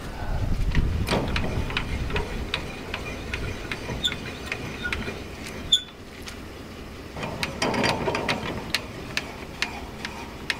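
Trailer tongue jack being worked by hand while hitching, its crank and gears clicking two to three times a second, with a low wind rumble on the microphone.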